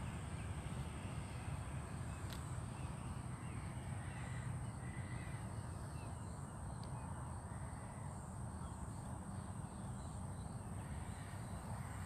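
Crows cawing, a string of short calls, over a steady low rumble and a constant high-pitched hum.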